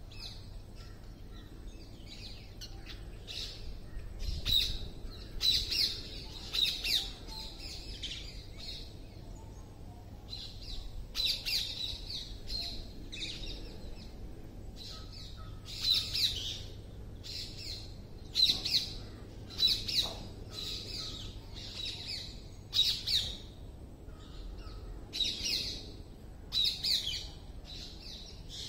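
Birds calling: repeated sharp chirps and squawks, a call every second or two, with a few brief lulls.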